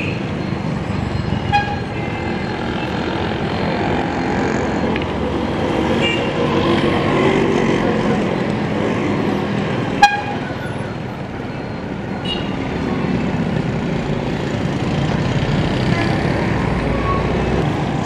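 Busy street traffic: a bus, motorcycles and cars passing, with short horn toots now and then. A sharp click about ten seconds in.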